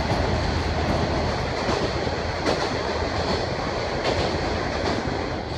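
KiHa 48 diesel railcar heard from inside the car as it runs: steady engine hum and wheel-on-rail noise with a few rail-joint clacks, inside a tunnel.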